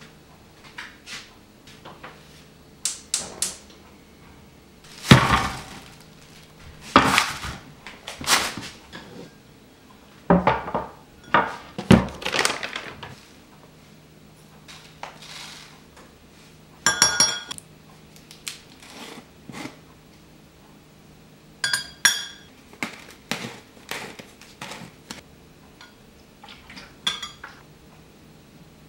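Kitchen prep sounds: a series of knocks and clatters of dishes and utensils on a counter. Twice in the second half, a metal spoon clinks and rings against a glass measuring cup.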